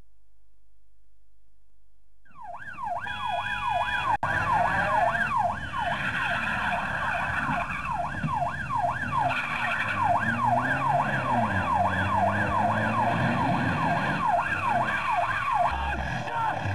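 Several police car sirens wailing together, their pitch sweeping up and down a few times a second, coming in suddenly about two seconds in over a low hum.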